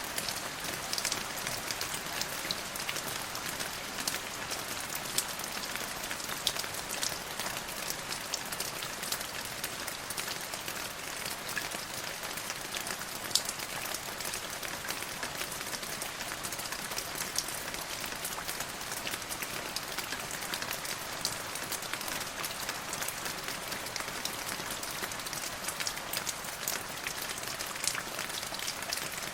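Steady rain falling on a surface, an even hiss with many close individual drop ticks and the odd sharper splat.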